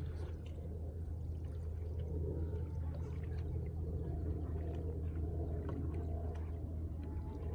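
Water lapping and sloshing over a steady low rumble, with scattered small clicks.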